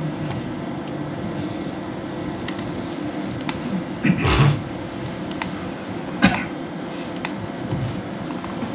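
Room tone: a steady hum like a fan or air conditioner, with a few short clicks, two of them more distinct about four and six seconds in.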